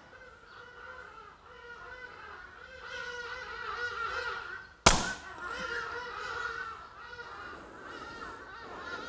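A single sharp, short shot about five seconds in from a BRK Ghost .22 PCP air rifle fitted with a Sigma M4 silencer. Farm birds call steadily in the background throughout.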